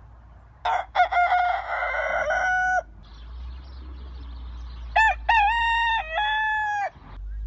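Rooster crowing twice. The first crow, starting just under a second in, is rough. The second, clearer crow starts about five seconds in.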